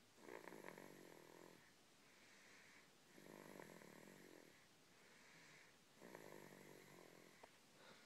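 A small child snoring in his sleep: three snores about three seconds apart, each lasting over a second, with a few faint clicks near the end.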